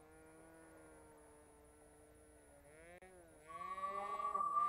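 High, thin buzz of a Cox .020 glow engine on a small model plane in flight, its pitch sagging slowly, then wavering up and down about three seconds in. About three and a half seconds in, a loud steady electronic tone with music starts and drowns it out.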